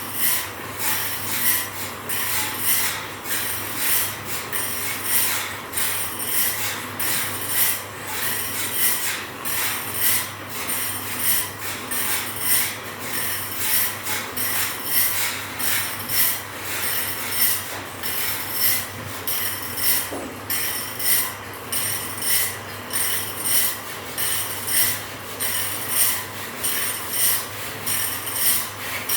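A file being drawn over the teeth of a band saw blade in steady strokes, about one scrape a second.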